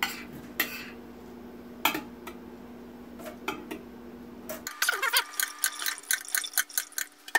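Metal ladle scraping and clinking against a glass baking dish while sauce is ladled off pulled pork: scattered sharp clicks, turning into a quick run of clicks over the last few seconds.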